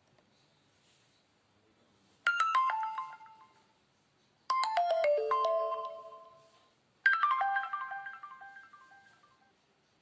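A preloaded Nokia Lumia 520 phone tone playing. After about two seconds of quiet, it plays three short phrases of quick chime-like notes, about two and a half seconds apart. Each phrase runs down in pitch and rings out.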